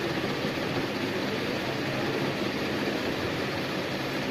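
Steady, even rushing background noise with no distinct events, such as a fan or air conditioner running in the room.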